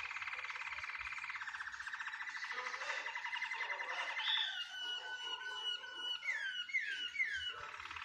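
Canary singing: a long, rapid rolling trill, then held whistled notes and three quick falling glides about six to seven seconds in, before the rolling trill picks up again near the end.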